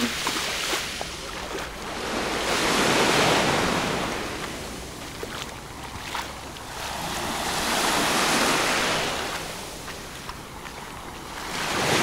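Small sea waves washing up on a pebble beach, three swells in turn, each rising and fading over a few seconds.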